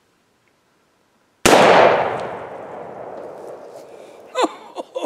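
Jukar .45-caliber percussion-cap muzzleloading pistol firing a black powder charge: a single sharp shot about a second and a half in, its report echoing and dying away over the next two to three seconds.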